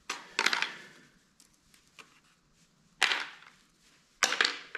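Hard black plastic generator housing parts knocking and clattering as they are handled, three short sharp clacks: about half a second in, at three seconds, and just after four seconds.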